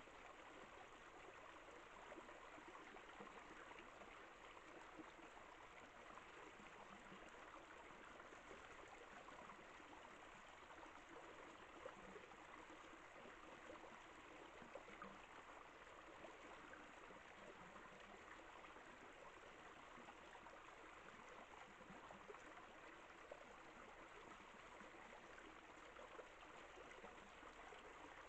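Near silence: a steady faint hiss.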